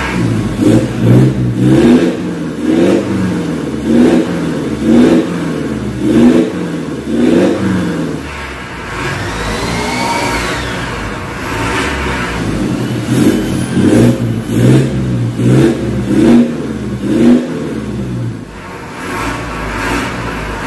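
Mitsubishi Pajero Sport engine revved in repeated short blips, about one a second, with a calmer stretch in the middle, heard through an aftermarket stainless full-system exhaust with its valvetronic cutout valve closed (standard mode).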